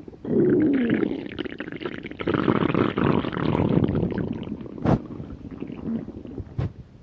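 Hungry stomach growling: a long bout of gurgling and rumbling, with a low tone that slides downward in the first second. Two sharp clicks come near the end as the sound dies away.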